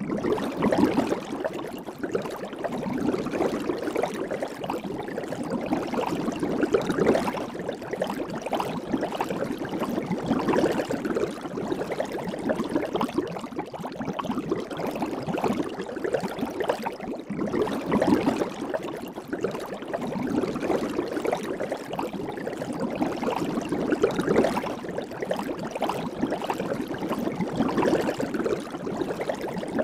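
Soap bubbles fizzing and popping in a dense crackle of tiny pops, swelling and easing every few seconds.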